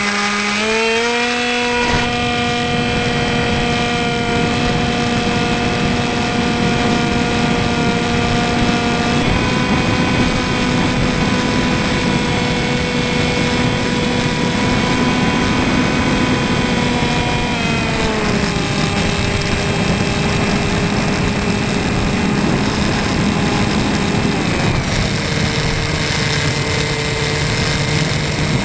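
Electric motor and propeller of an RC model plane, heard from a camera on board. The motor whines steadily in flight, rising as the throttle opens for the take-off run, stepping a little higher about a third of the way through, then dropping lower about two-thirds through, with air rushing past the airframe underneath.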